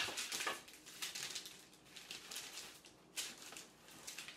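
A metal spatula and a knife scraping and rustling against parchment paper as strips of chilled cookie dough are lifted and separated: a string of short scrapes, the loudest right at the start.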